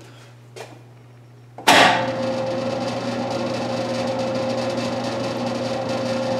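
Tsugami lathe started up: after a low steady hum, the spindle kicks in suddenly about a second and a half in, then runs steadily at slow speed, about 300 rpm, with a steady tone over the machine noise.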